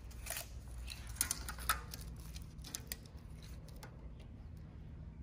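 Tape measure being pulled out and laid across a plastic-wrapped stainless griddle: scattered light clicks, scrapes and rustles, mostly in the first two seconds, over a low steady hum.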